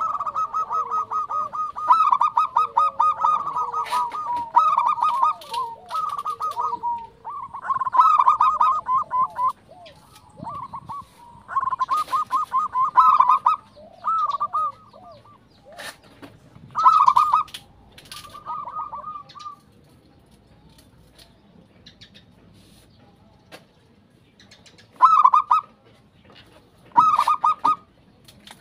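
Zebra dove (perkutut) singing its manggung song: rapid, stuttering coo phrases in repeated bursts of about a second each. They come thick and fast at first, then fall silent for a few seconds after about twenty seconds before two more phrases.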